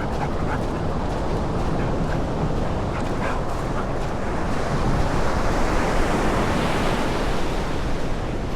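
Ocean surf breaking and washing up the beach, a steady rush of water with one wave building louder about five seconds in and then fading.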